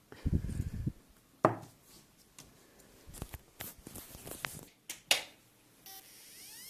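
Hard drive read/write heads seeking, heard as a fast rattling burst of clicks, then separate sharp clicks and a string of ticks. Near the end a whine with several tones starts rising in pitch, like a drive's spindle motor spinning up.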